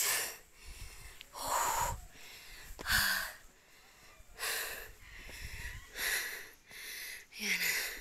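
Heavy, rhythmic breathing of a hiker out of breath from climbing a steep stepped trail, close to the microphone, with a hard breath about every second and a half.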